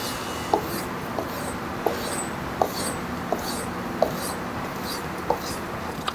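Kitchen knife blade stroked in a steady back-and-forth rhythm across a kangaroo-leather strop loaded with metal polishing compound, about a stroke and a half a second. Each pass gives a soft swish with a light click. This is the final polishing of the edge, taking no steel off.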